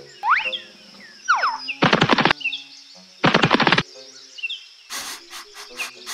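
Bird-like animal calls: swooping, whistling chirps, two harsh rasping calls about two and three and a half seconds in, and a run of rapid buzzy pulses near the end.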